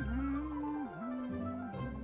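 Background music: two long held notes over a steady low bass.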